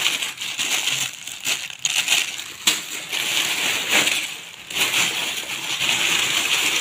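Thin plastic carrier bags and clear plastic bags rustling and crinkling as hands rummage through them, with loose LEGO bricks clicking and rattling against each other.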